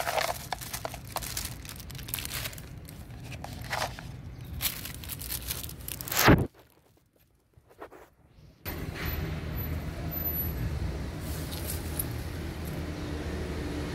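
Plastic bag rustling and crinkling in the hands, ending in a loud bump about six seconds in. After a short break, a steady low outdoor rumble.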